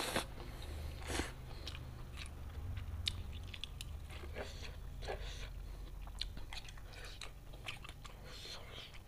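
Close-up eating sounds of fried instant noodles: a slurp as noodles are sucked in at the start and another about a second in, then wet chewing with many small mouth clicks and smacks.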